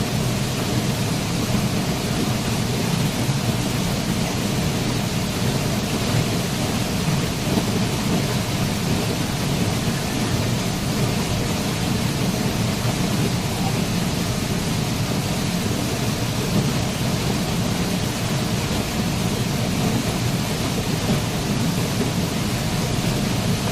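Waterfall rushing steadily: an even, unbroken noise of falling water, heaviest in the deep low end, with no single splashes standing out.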